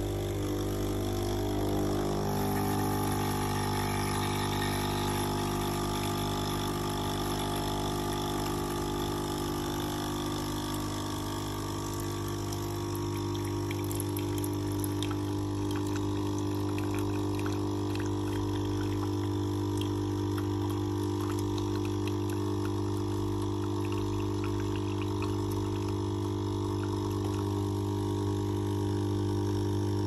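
HiBREW 19-bar capsule coffee machine brewing: its pump hums steadily over the hiss of liquid running into the cup.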